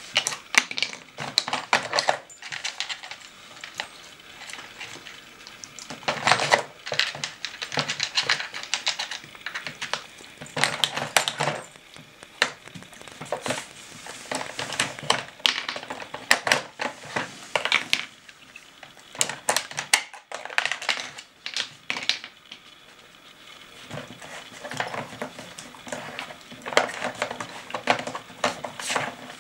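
Hard plastic pieces of a dog treat puzzle clicking and clattering in bursts as a dog noses and paws at it, shifting its wedges and knocking its bone-shaped pegs about on a wooden floor.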